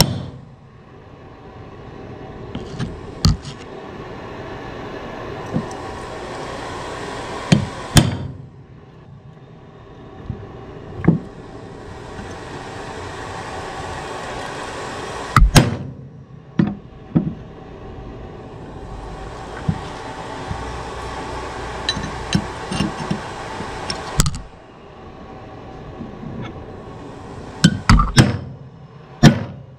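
Small hammer striking a screwdriver driven against the steel-cased front seal of a 200-4R transmission's front oil pump to work it loose: scattered sharp metal knocks, singly and in small groups, the loudest cluster near the end. A steady background hiss fills the long gaps between strikes.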